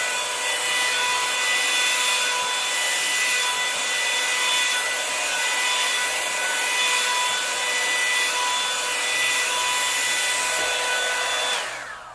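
Revlon One-Step paddle hair dryer running on its cool setting: a steady rush of air with a high motor whine, switched off near the end and winding down.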